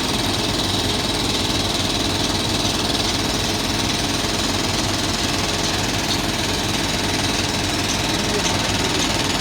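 Excavator's diesel engine running steadily, with a deep, even drone.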